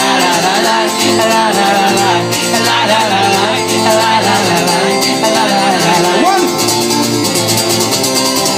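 Live acoustic guitar strumming while the audience sings along to a wordless "la la la" chorus.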